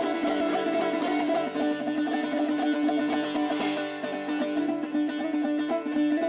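Shurangiz, a Persian long-necked plucked lute, played in rapid plucked strokes over a ringing, sustained low note, as part of a solo improvisation.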